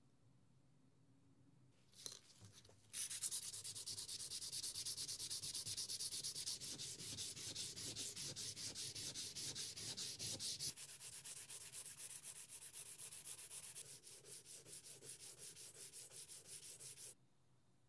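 Fast back-and-forth rubbing on a wet diamond sharpening plate: a gritty scraping hiss in quick regular strokes, several a second. It starts about three seconds in, after a short knock, and cuts off abruptly near the end.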